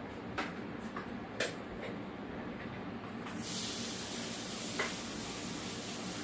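Raw ground beef sizzling as it goes into a hot, greased cast iron skillet, the hiss starting suddenly about three seconds in and holding steady. A few light clicks of handling come before it.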